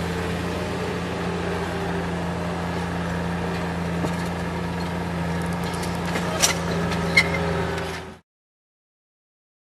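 Heavy construction machine's engine running steadily, with two sharp metallic knocks about six and a half and seven seconds in; the sound then cuts off abruptly to silence.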